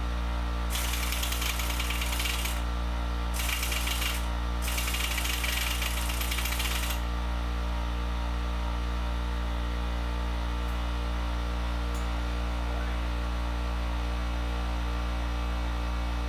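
Air needle descaler hammering rust off engine parts in three bursts, about two seconds, one second and two and a half seconds long, over a steady low hum that carries on alone for the second half.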